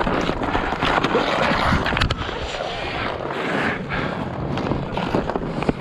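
Ice hockey skates scraping and carving across snow-covered pond ice, with wind on the microphone and a couple of sharp clacks of stick on puck.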